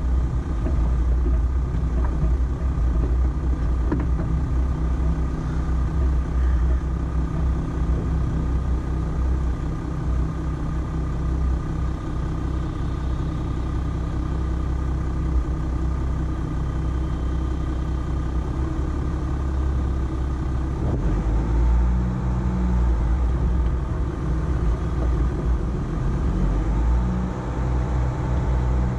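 Volkswagen Amarok pickup driving slowly over an off-road course: a steady low engine rumble, whose note shifts and briefly grows louder about three quarters of the way through.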